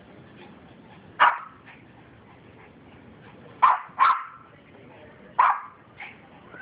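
A dog barking: four single sharp barks, the second and third close together in a quick double.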